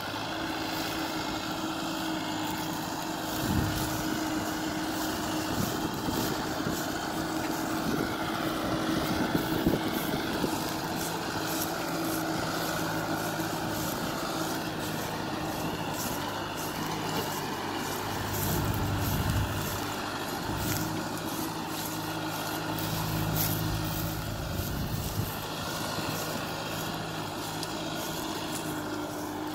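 Kubota M6040SU tractor's four-cylinder diesel engine running steadily under load as the tractor works a rear rotary tiller through grassy field.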